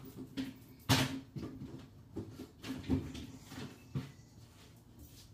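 Household knocks and clatter, as of a cupboard being opened and things inside it being handled: one sharp knock about a second in, then lighter knocks about once a second.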